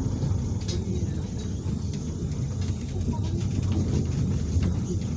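A city bus driving, heard from inside the passenger cabin: a steady low rumble of engine and road noise.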